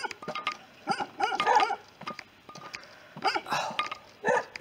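Young farm dogs barking in short bursts with pauses between them.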